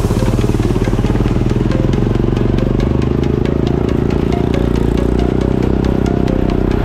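Racing ride-on lawn mower engine running hard at steady high revs, heard close up.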